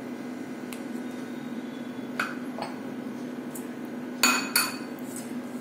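A metal spoon clinking against a stainless steel mixing bowl as butter is knocked off it into the flour: a few light clinks, then a louder pair about four seconds in. A low steady hum runs underneath.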